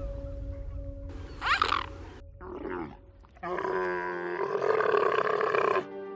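Animal calls over background music: a short high sweeping call about a second in, then a loud, long, deep call lasting about two seconds from about halfway through.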